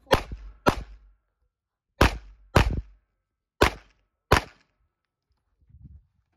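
Six handgun shots fired in three quick pairs, about half a second between the two shots of each pair and about a second between pairs: double-taps in a timed IDPA course of fire.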